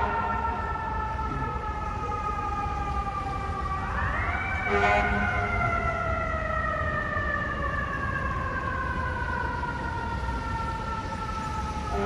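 Fire truck's mechanical siren in a long falling wail, spun back up about four seconds in, then winding slowly down again. A brief low blast sounds as it peaks, over a steady low rumble.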